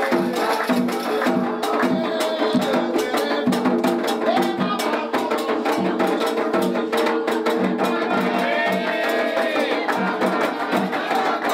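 Candomblé ritual music: hand drums beating a fast, steady rhythm under voices singing.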